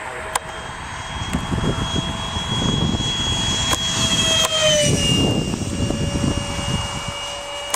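Radio-controlled model airplane's motor and propeller whining steadily in flight, the whine dropping in pitch about five seconds in as the plane passes by, over a gusty low rumble.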